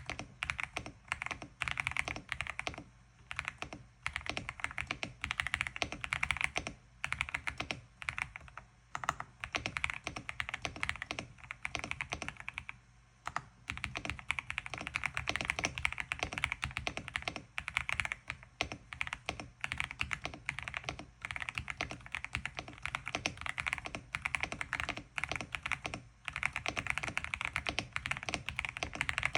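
LINGBAO MK75 mechanical keyboard being typed on in fast, continuous runs of keystrokes, with a few brief pauses.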